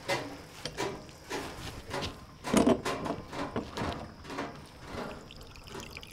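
Irregular soft knocks and scuffs of footsteps on a straw-strewn dirt floor, with a louder knock about two and a half seconds in.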